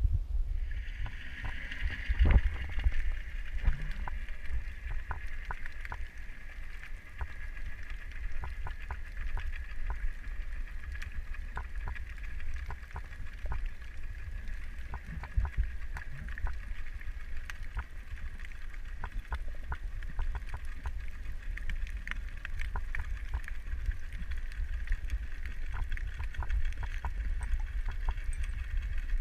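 Underwater ambience: a steady low rumble and hiss, with many short, sharp clicks scattered throughout.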